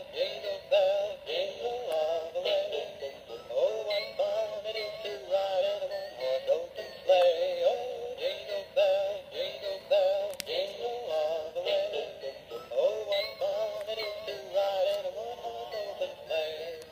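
Music: a song with a high, synthetic-sounding sung melody that wavers in pitch.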